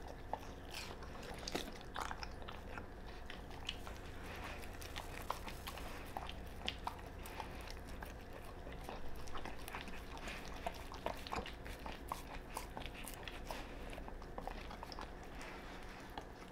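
Doberman eating raw meat out of a small carved pumpkin: steady chewing and biting, with many short, sharp crunches and clicks scattered throughout.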